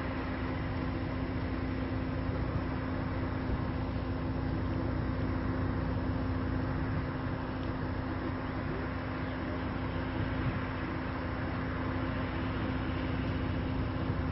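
Steady low rumble and hiss with a constant low hum running under it, even in level throughout.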